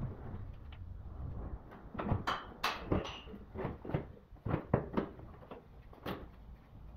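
Plastic one-litre engine-oil bottles being handled in a cardboard case: a cluster of sharp knocks and clatters about two to five seconds in, and one more near the end, over a low steady hum.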